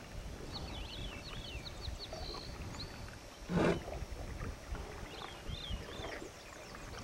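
Songbirds singing short, high, quickly repeated phrases, twice, over a low wind rumble, with one loud thump about halfway through.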